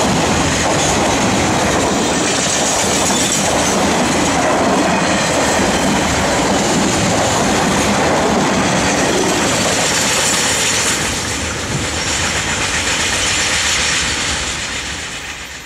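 Container freight train's wagons rolling past on the rails, a steady running noise of wheels on track that fades away near the end as the last wagons move off.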